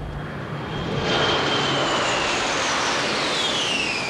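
A large formation of Navy carrier jets flying low overhead. The jet noise swells about a second in, and a high whine drops in pitch as the formation passes over.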